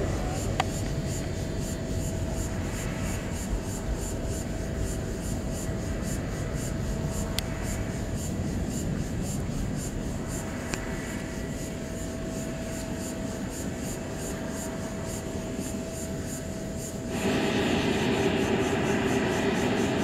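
Distant jet engine rumble of a twin-engine airliner climbing away after takeoff, steady with a faint hum. About three seconds before the end it cuts abruptly to a different, louder steady noise.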